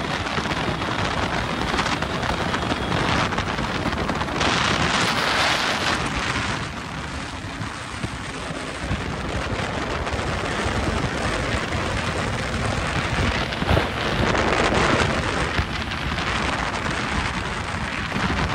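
Steady wind rush on the microphone of a moving motorcycle, with vehicle and road noise beneath. The rush swells louder for a couple of seconds about four seconds in.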